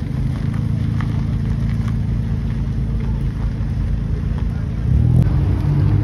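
Cars driving slowly past at low revs: a lowered first-generation Honda CR-V's engine and exhaust rumbling steadily, then an Alfa Romeo Giulia Quadrifoglio's exhaust coming in louder about five seconds in.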